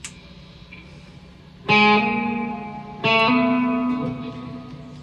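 WestCreek Racer electric guitar with humbucking pickups, played through an amplifier set fairly low: two chords strummed about a second and a half apart, each left to ring and fade.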